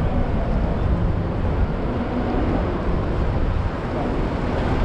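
Steady wind rumble on an action camera's microphone on a moving bicycle, over city street and traffic noise.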